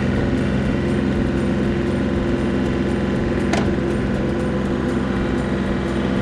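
Tractor engine running steadily while pushing a manure pile, with one brief sharp click about three and a half seconds in.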